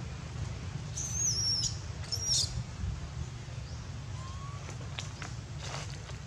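Two short, very high-pitched squeaky calls, wavering and falling slightly in pitch, about a second apart, over a steady low hum.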